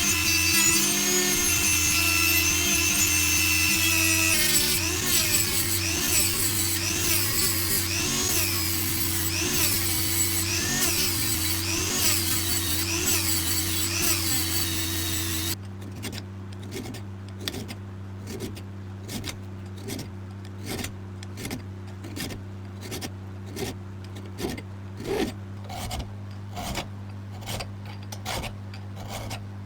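Power tool running steadily on the metal wrench, its sound rising and falling about once a second as the piece is worked against it. It cuts off suddenly about halfway, and quick hand rubbing strokes follow, about two a second.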